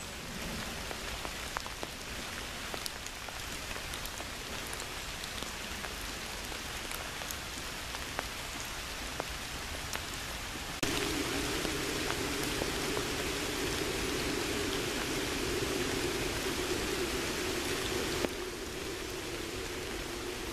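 Steady rain falling on leaves and a wet path, with scattered single drips ticking close by. About halfway in, a louder low rushing joins for some seven seconds, then drops away.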